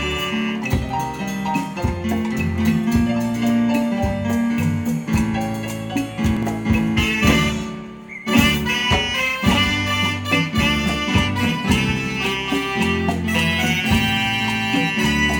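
Live band playing a dance tune, with a saxophone melody over electric guitar, bass, drum kit and keyboard. About eight seconds in the sound thins out briefly, then the full band comes back in at once.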